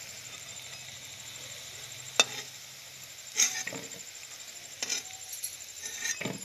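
Fish-roe fritters frying in hot oil in a metal wok, with a steady sizzle, and a metal spatula clinking and scraping against the pan a few times as the fritters are lifted out; the sharpest clink comes about two seconds in.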